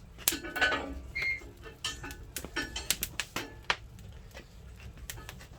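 Firewood burning in a wood stove, crackling and snapping in sharp, irregular pops, with a few brief high whistles.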